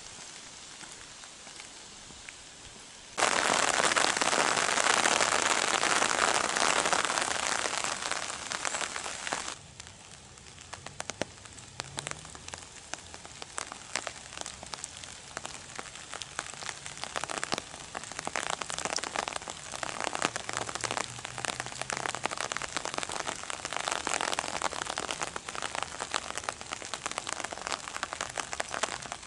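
Rain falling on an open umbrella overhead. A steady hiss jumps suddenly louder about three seconds in and drops back some six seconds later, then gives way to dense pattering with sharp taps of single drops on the canopy.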